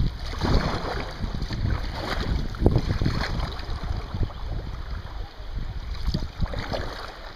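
Kayak paddling on a river: water splashing and dripping in irregular strokes, over a low rumble of wind buffeting the microphone.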